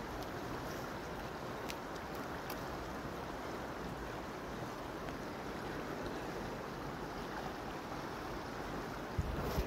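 Steady rushing of a shallow river flowing beneath a bridge, with a brief low bump near the end.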